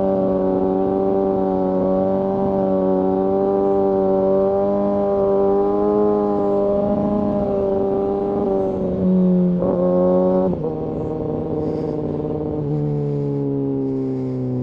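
Kawasaki ZX6R inline-four sport bike engine running at a steady cruise, heard from the rider's position with wind noise. About nine seconds in the engine note rises briefly, then drops in two steps to a lower pitch.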